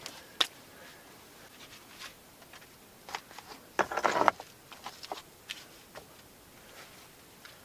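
Rocks being handled in the bottom of a drained pond: scattered clicks and knocks as stones are picked up and set down, with a louder rough scrape lasting about half a second about four seconds in.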